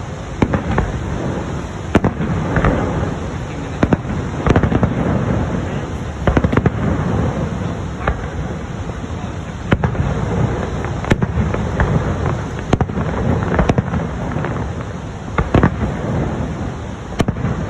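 Fireworks display: aerial shells bursting in an irregular series of sharp bangs, a few every couple of seconds, over a continuous low rumble.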